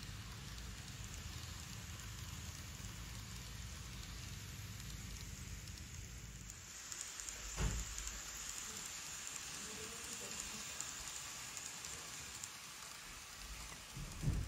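Micro Ace N-scale model electric trains running along the track: a steady low rumble of motor and wheels that turns into a higher hiss about halfway through. There are two brief knocks, one about halfway and one near the end.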